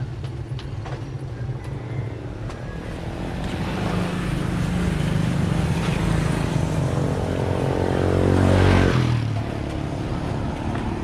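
A motor vehicle passing close by on the road: its engine grows louder over several seconds, is loudest just before nine seconds in, then falls away quickly. A low engine hum runs underneath.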